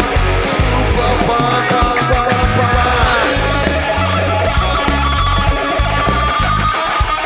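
Rock band playing live through an instrumental passage with no vocals: electric guitar over a bass line moving in even steps, with drums keeping time.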